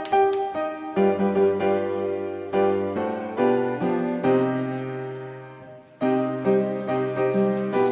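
Background piano music: struck notes and chords left to ring and fade, one phrase dying away about six seconds in before the next begins.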